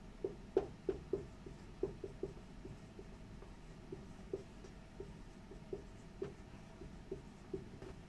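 Dry-erase marker writing on a whiteboard: an irregular string of short, faint squeaks and taps as the letters are formed.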